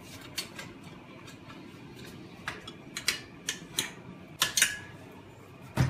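Irregular sharp metallic clicks and clinks as a steel coil suspension spring and its hooks knock against a swing chair's steel frame while being hooked on, with a heavier knock near the end.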